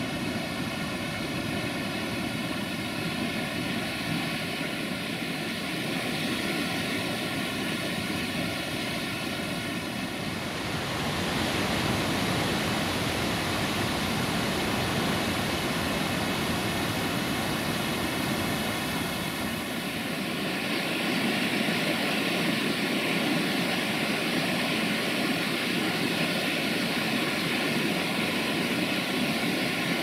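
Waterfall and river rapids rushing: a steady, dense rush of water that shifts in tone about ten seconds in and again about twenty seconds in.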